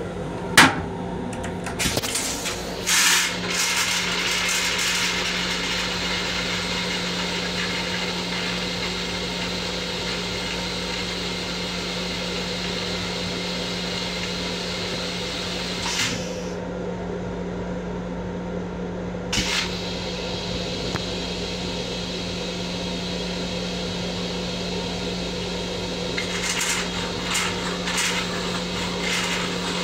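Long Island Rail Road M7 railcar toilet flushing: a sharp click just after the start, then a few seconds of water rinsing the stainless bowl. After that, the railcar's steady hum with a few scattered clicks.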